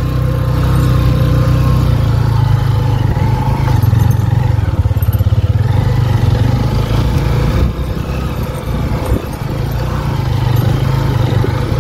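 Honda CB150F single-cylinder motorcycle engine running under load through deep sand, its level dipping and wavering about two-thirds through before it picks up again.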